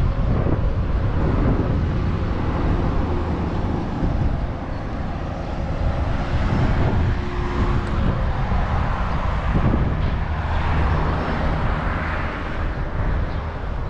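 Street traffic: vehicle engines running nearby, a steady low rumble that swells a little around the middle.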